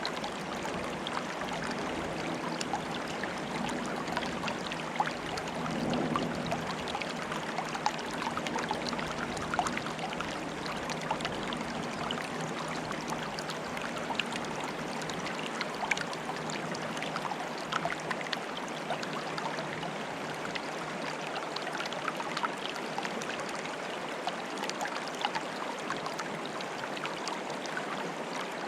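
Water trickling and bubbling, a steady wash with many small splashes and plinks.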